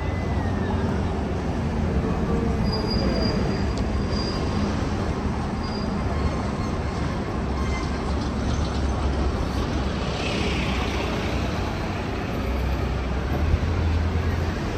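Steady low vehicle rumble with a faint, thin high squeal a few seconds in.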